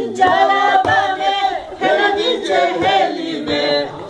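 A few people singing a song together, with hand claps.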